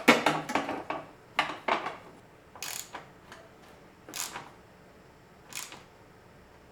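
Metal hardware clicking and scraping as a nut is worked by hand onto a rock slider's mounting bolt. A quick cluster of clicks comes first, then three short separate scrapes about a second and a half apart.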